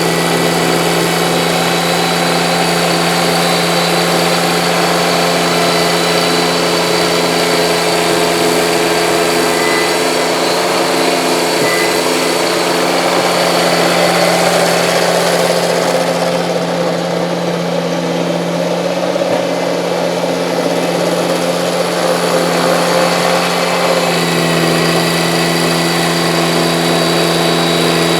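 Kubota compact tractor's diesel engine running steadily at working speed, driving a front snowblower; the tone shifts slightly for several seconds in the middle.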